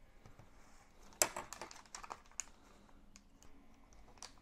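Scattered light clicks and taps from handling a block of tofu and its plastic package on a counter, with one sharper tap about a second in.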